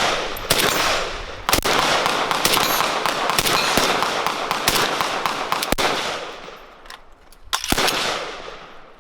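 Gunshots on a shooting range: several sharp reports about a second or more apart, the loudest near the start and near the end, each followed by a long echoing tail.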